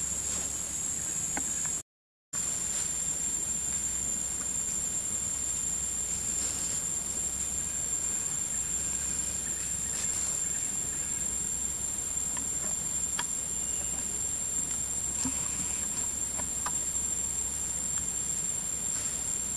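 Steady high-pitched drone of an insect chorus in the forest, with a few faint ticks and rustles. The sound cuts out completely for a moment about two seconds in.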